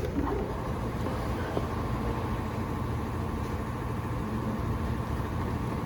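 Steady low rumble of a motor vehicle's engine running, with a faint steady whine above it.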